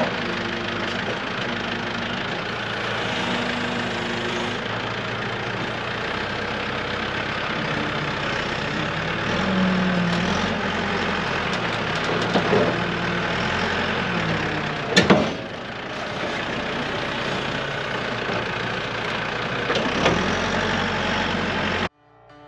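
Diesel engine of a backhoe running steadily under load as it moves into place. A few sharp metallic knocks come through, the loudest about fifteen seconds in, and the engine sound cuts off suddenly near the end.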